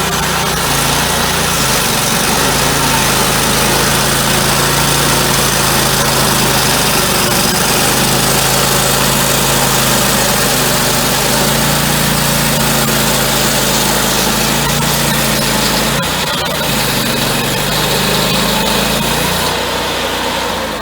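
Portable sawmill's gasoline engine running steadily under load while the saw cuts through a black walnut log, with a dense rasping saw noise over the engine hum.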